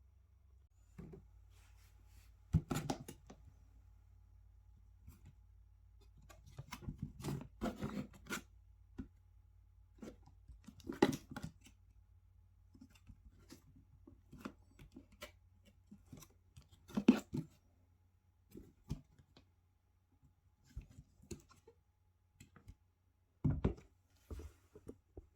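Handling noises from unpacking: irregular clicks, knocks and short rustles, some sharp and some longer, separated by quiet gaps, with a few louder ones spread through.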